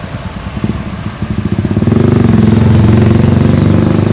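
A motor vehicle's engine running close by, growing louder from about a second in until it is loud and steady.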